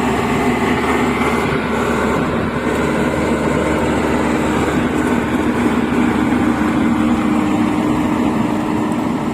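Rice combine harvester's diesel engine running steadily under load as the machine travels between paddy plots, a constant loud mechanical drone.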